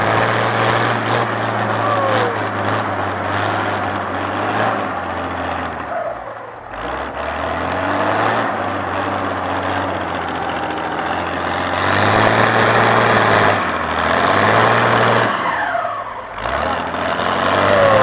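Wheel loader's turbocharged diesel engine running loud, its pitch dropping and climbing back twice as it is revved, with short falling whistles over the engine note.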